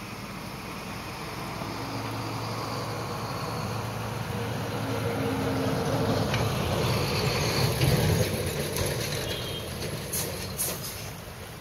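A motor vehicle's engine passing by, growing louder to a peak about eight seconds in and then fading, over the steady rush of a small stream.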